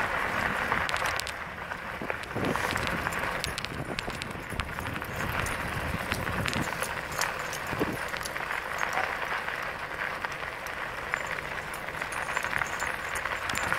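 Running footsteps of a person jogging behind three dogs pulling on a bungee line, with feet and paws striking the path in a steady patter.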